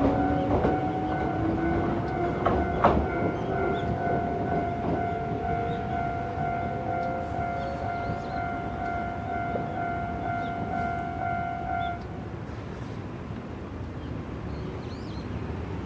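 An Iyotetsu 700 series electric train pulls away across a steel truss bridge: its motor whine rises slowly in pitch as it accelerates, with wheels clacking over the rail joints and a running rumble. A level crossing alarm rings steadily over it and stops about twelve seconds in, once the train has cleared the crossing.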